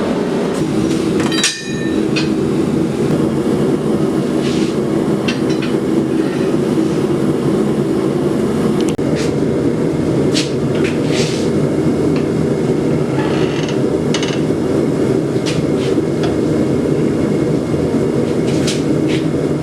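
Blacksmith's hammer striking steel on the anvil, a dozen or so irregular blows spread across the stretch, one early blow leaving a brief ring, over a steady, loud rushing noise.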